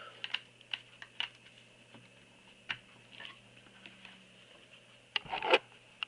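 Scattered light plastic clicks and taps from handling a tablet and a mini USB keyboard, with a louder clatter about five seconds in, over a faint steady hum.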